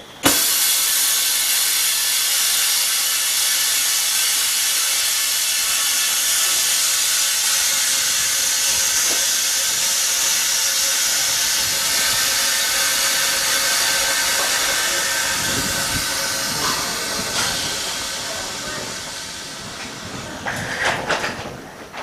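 Autoclave bubble remover venting its compressed air at the end of a cycle: a loud, steady hiss that starts suddenly and tapers off over the last few seconds, followed by a few clicks and knocks.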